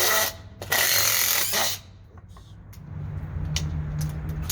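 DeWalt DCF887 20-volt impact driver hammering as it drives a 3-inch screw into wood, in two loud bursts, the second about a second long. After a short pause, a quieter steady low whirr with a few clicks.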